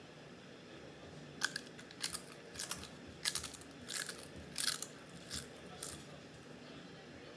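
Spicy chips being bitten and chewed with the mouth close to the microphone: a run of sharp, crisp crunches about every half second. They start a little over a second in and stop about six seconds in.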